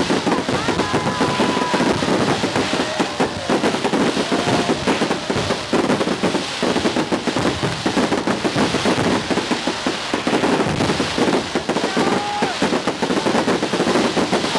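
Fireworks going off in a dense, unbroken barrage of rapid pops and crackles, many per second.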